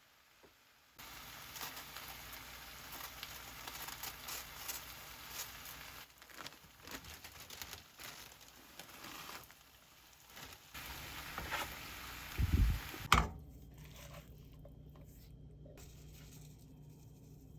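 Rustling and crinkling handling noises with many small clicks and crackles, and a dull thump about twelve seconds in.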